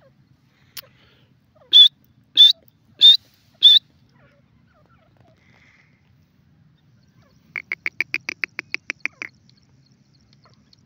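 Grey francolin calling: four loud, shrill calls about two-thirds of a second apart, then about seven seconds in a fast run of a dozen or so short clipped notes, roughly eight a second.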